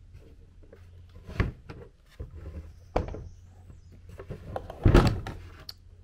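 Plastic knocks and clunks as the black debris container of a Milwaukee M12 Fuel wet/dry vac is handled and picked up. There are a few separate knocks, the loudest near the end.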